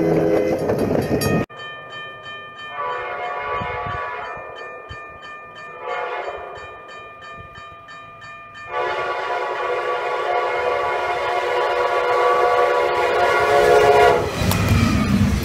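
Grade-crossing bell ringing steadily as a locomotive approaches, sounding its horn for the crossing: two shorter blasts, then one long blast that grows louder as it nears. Near the end the train rushes past, throwing snow with its plow. The first second and a half is another clip of horn and snow spray against the cab, cut off abruptly.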